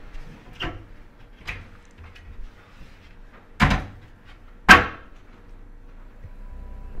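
Small double wooden cabinet doors in a wall being pulled shut from inside: a few light knocks, then two sharp bangs about a second apart, the second the loudest.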